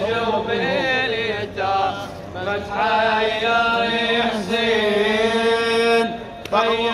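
A man's voice chanting a Shia nawha (lament) into a microphone, in long held notes that waver and bend. There is a short break about six seconds in.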